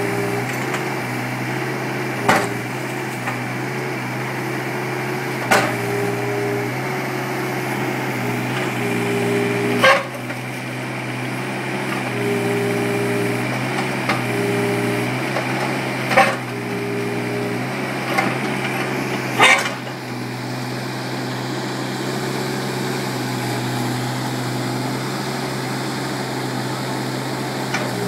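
Mini excavator engine running steadily, its note shifting as the arm works, with about six sharp knocks as the bucket strikes and breaks a concrete block wall, all within the first two thirds.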